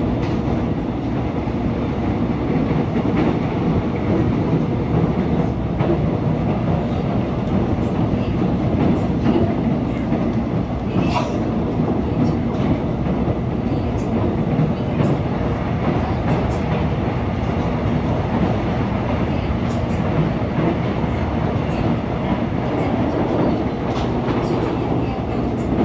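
Seoul Subway Line 1 express train running at speed on surface track, heard from inside a carriage. It makes a steady low rumble of wheels on rail, with a few faint, irregular clicks.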